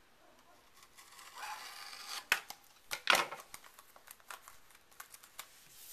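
A small retail software box and its packaging handled and torn open by hand: a rustling, tearing stretch about a second and a half in, then sharp clicks and a short loud rip around three seconds in, followed by scattered light taps and crinkles.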